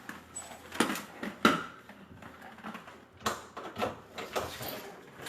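Irregular knocks and clattering as a drain-cleaning rodder cable is handled and fed into the sink's drain pipe, several sharp knocks a second or so apart.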